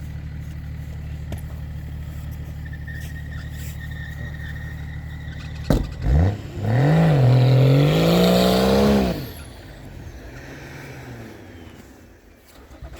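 Off-road 4x4's engine idling steadily, then, right after a sharp knock about six seconds in, revving hard with its pitch climbing for about three seconds before dropping back to a quieter idle that fades near the end. This is an attempt to drive a stuck vehicle out of deep snow.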